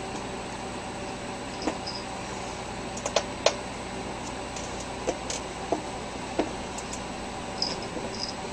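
Steady background hiss with a faint hum, broken by several light clicks and taps scattered irregularly through it.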